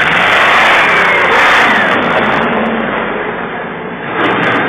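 Rover V8 engine in a Ferguson TE20 tractor, fuel-injected and rated at 160 bhp, running loud and being revved. It drops back after about two seconds and is revved up again about four seconds in.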